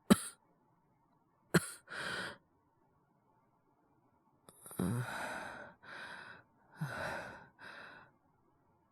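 A man's acted cold-sufferer's voice. There is a short cough right at the start and another about one and a half seconds in, followed by a breath. From about five seconds in come a few heavy, breathy sighs and breaths, as of someone feverish and short of breath.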